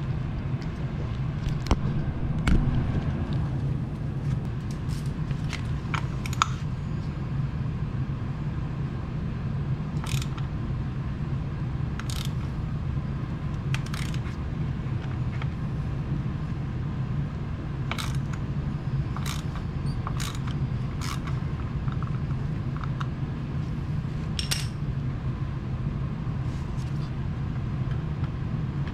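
Sharp metallic clicks every second or two, a ratchet and extension turning an oil filter wrench to loosen the oil filter, over a steady low hum.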